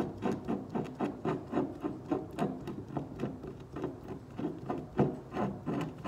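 Wooden cap of a Cholula hot sauce bottle being twisted open by hand, a quick run of short rubbing creaks, about four or five a second, as it is turned in small twists.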